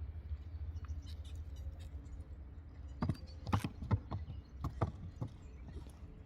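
Horse's hoofbeats: a short run of about seven sharp strikes in the second half, over a steady low rumble.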